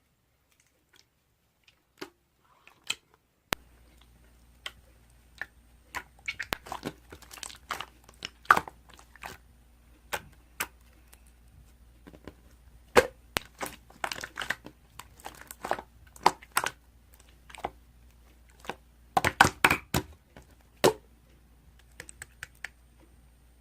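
Irregular sharp crackling and crunching clicks, coming in clusters, over a faint steady hum that comes in a few seconds in.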